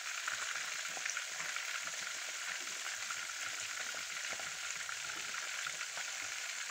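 Besan-coated chicken pieces deep-frying in hot oil: a steady sizzle with fine crackling. The chicken is half cooked and has already been turned.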